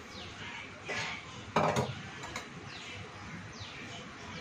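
Metal kitchenware clinking: a light knock about a second in, then a sharper clink about half a second later, over faint falling high chirps that repeat every second or so.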